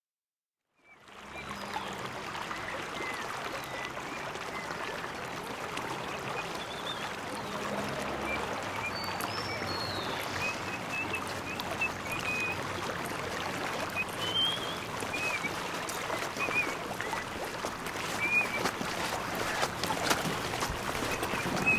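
Outdoor ambience: a steady rush like running water, fading in about a second in, with short bird chirps now and then.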